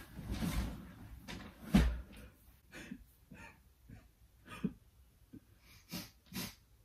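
Bedding rustling and a thump as a man climbs onto a bed and pulls the comforter over himself, then several short sniffs and breaths as he fakes crying.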